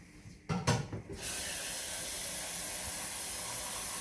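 A couple of quick plastic knocks, then from about a second in a tap runs in a steady hissing stream, filling the coffee machine's removable water tank.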